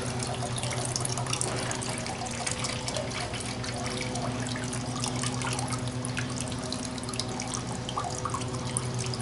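Meltwater draining from an Igloo cooler's drain spout in a thin stream, splashing steadily into a plastic pitcher. A steady low hum runs underneath.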